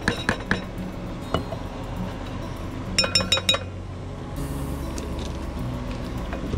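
Spoons knocking and clinking against a cooking pot and a bowl: a few taps near the start, one about a second later, then a quick run of ringing metal clinks about three seconds in.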